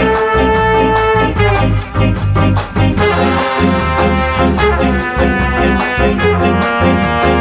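Upbeat background music with brass horns playing held notes over a steady, quick drum beat.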